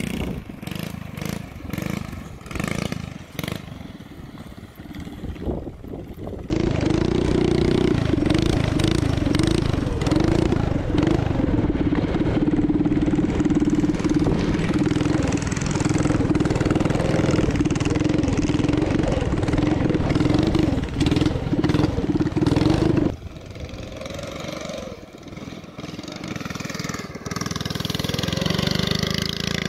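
Motorized drift trike's small engine running and revving as the trike slides. The engine is much louder and steadier from about six seconds in to about twenty-three seconds, heard up close from the rider's seat.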